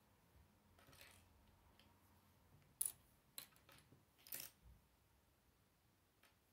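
Small plastic Lego pieces clicking and clattering as they are handled: one sharp click a little under three seconds in, then a few lighter clicks and a short rattle over the next second and a half.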